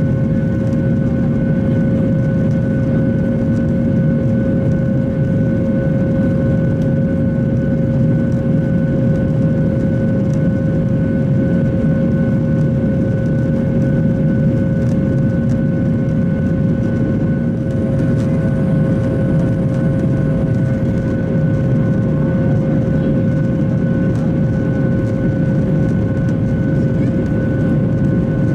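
Steady cabin roar of a Boeing 737-800 climbing out, its CFM56-7B turbofan engines droning with a steady whine over the low rumble of air. A lower hum in the drone drops away a little over halfway through.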